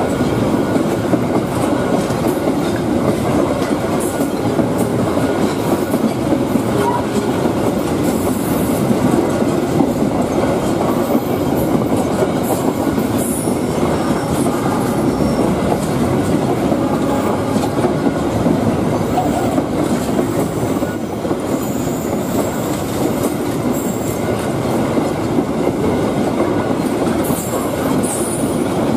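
Container freight train's flatcar wagons rolling past close by: a steady, loud rumble of steel wheels on rail, with brief high-pitched wheel squeals now and then.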